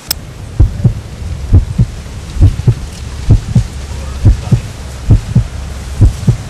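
Heartbeat sound effect: pairs of low thumps, lub-dub, about one pair a second, seven pairs in all, over a steady low drone. A sharp click comes at the very start.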